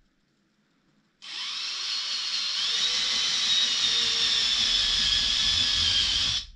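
A cordless power tool spinning a small two-flute router bit starts about a second in and runs with a steady high whine. The bit is cutting flaws out of partly cured epoxy resin, and the pitch sags a little as it bites. The whine stops abruptly near the end.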